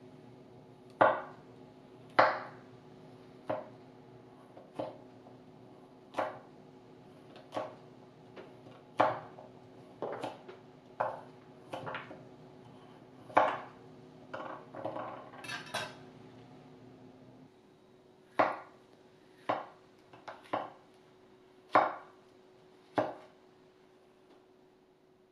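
A Morihei Hisamoto INOX 210 mm stainless gyuto slicing through carrot, and later yellow bell pepper, on a wooden cutting board. Each cut is a sharp crunch and knock of the blade on the wood, evenly paced at a little over one a second, with a quicker flurry of small cuts about two-thirds of the way through.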